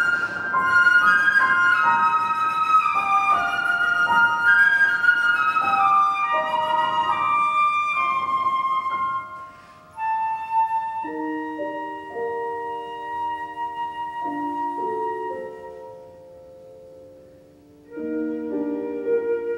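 Flute and piano playing classical chamber music: quick running flute passages over the piano, then after a brief dip a long held flute note over sustained piano chords, which grow quieter and then swell again near the end.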